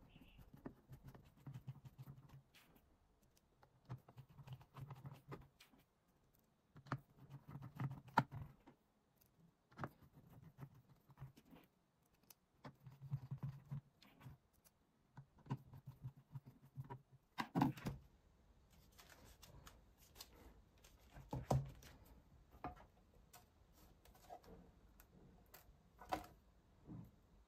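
Small screws being turned with a hand screwdriver into the frame of a LAUNCH X431 PRO3S+ scan tablet: faint scraping and clicking in short bursts every couple of seconds, with two louder knocks in the second half.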